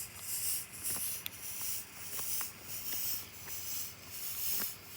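Small fog machine running and putting out fog, a hiss that pulses roughly every two-thirds of a second, with a few light clicks.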